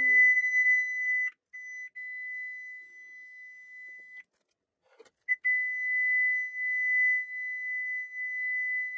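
A steady, high-pitched pure test tone from a frequency-generator app, played through a loudspeaker driver to vibrate a stretched polythene sheet so the rangoli powder on it forms a resonance pattern. The tone breaks off briefly after about a second, stops for about a second midway, then resumes unchanged.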